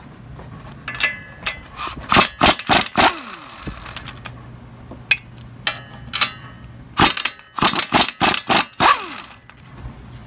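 Impact wrench breaking loose and spinning off the two 21 mm strut-to-spindle nuts: two bursts of sharp metallic hammering, one about a second in and one about seven seconds in, each ending in a falling whine as the tool winds down.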